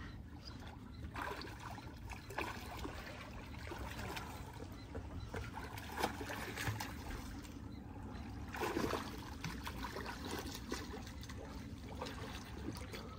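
Soft splashing and trickling water from snorkelers swimming at the surface of calm, shallow water, with small irregular splashes and a slightly louder one about nine seconds in.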